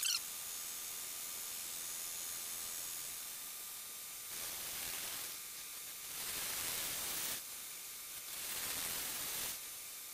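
Metal lathe turning a wooden pulley blank, the cutting tool shaving the wood with a steady hiss that swells louder three times in the second half.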